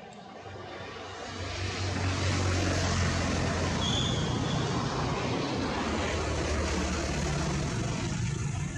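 A motor engine running steadily, with a low hum under broad noise; it grows louder about a second and a half in and fades near the end, like a passing vehicle.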